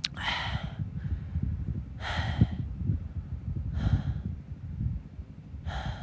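A man breathing audibly close to the phone microphone: four short, breathy exhalations about two seconds apart, with no voice in them. Under them runs a steady low rumble of wind on the microphone.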